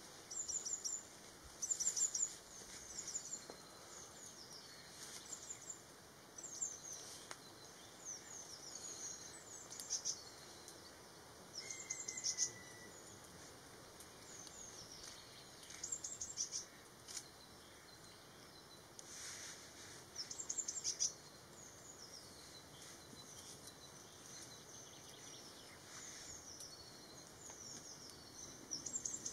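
Small birds singing: short, high chirping phrases and trills every second or two, over a faint steady hiss.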